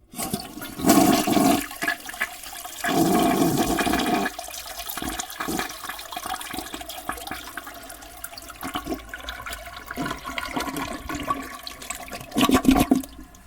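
Toilet flushing: water rushing and gurgling, with loud surges about a second in, around three seconds in and again near the end, then fading away as it drains.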